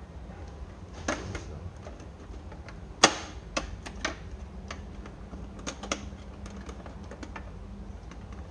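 Irregular plastic clicks and knocks from a dehumidifier's water tank and casing being handled and fitted, the loudest a sharp knock about three seconds in, over a low steady hum.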